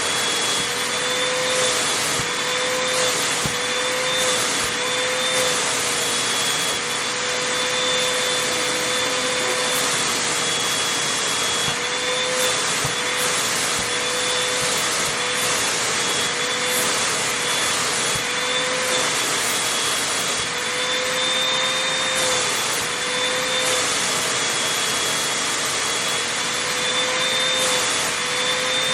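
Vacuum cleaner running steadily as it is worked over fabric, a jacket or comforter. Its motor whine wavers slightly in pitch over a constant rushing of air.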